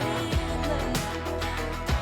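Background pop music with a steady beat: kick drum, cymbals and sustained bass and chords, with no singing at this moment.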